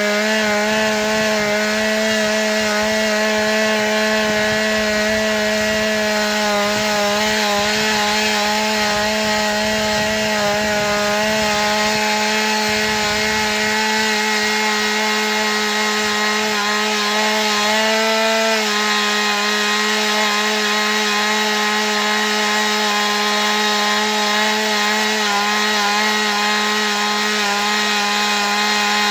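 Stihl MS 180 two-stroke chainsaw running steadily at high revs while cutting wood; the engine note drops slightly about two-thirds of the way through and then holds.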